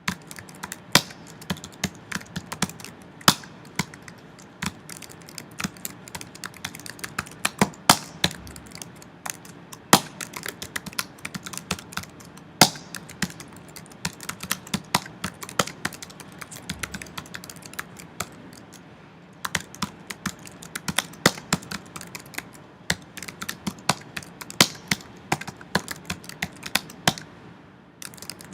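Typing on a computer keyboard: quick, uneven runs of keystrokes with a pause of about two seconds roughly two-thirds of the way through.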